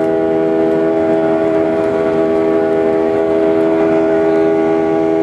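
Boeing 737 jet engines heard from inside the passenger cabin: a loud, steady hum made of several held tones over a rushing noise, not changing in pitch.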